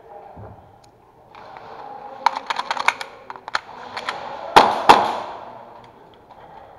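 Airsoft gunfire: a quick string of sharp shots about two seconds in, then two loud cracks close by a little before five seconds.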